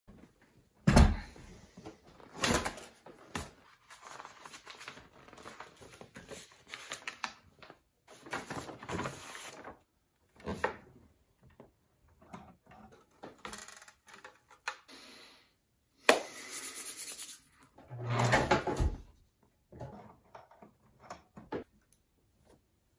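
Intermittent handling noises from working on a portable sewing machine by hand: irregular clicks, knocks and rustling as it is threaded and adjusted, with no motor running.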